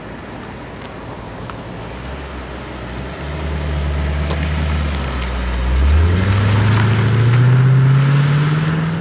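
Lexus IS-F's 5.0-litre V8 running at low revs, getting louder about three seconds in. About six seconds in it revs up, its pitch climbing steadily as the car accelerates, and it eases off slightly near the end.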